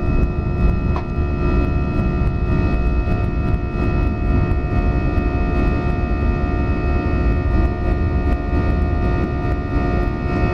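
Airbus A319 jet engines at takeoff thrust, heard from inside the cabin just after liftoff and in the initial climb: a steady low rumble with constant whining fan tones.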